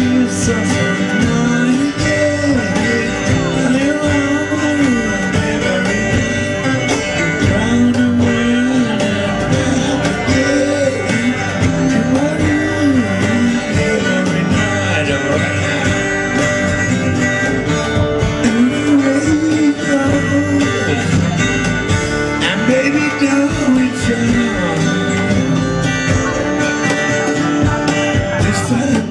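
Live rock band playing a song: guitars, upright bass and drums.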